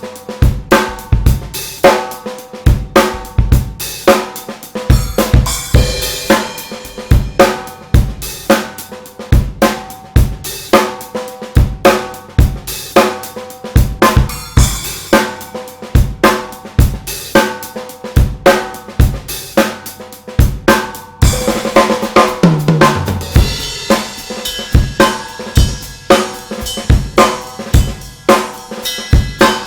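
Drum kit playing a steady groove around a DW Design Series 14x6.5 nickel-over-brass snare drum, left unmuffled so it cracks sharply with ringing overtones, over kick drum and hi-hat. About two-thirds of the way in a cymbal crash washes over the beat with a low drum tone sliding down in pitch.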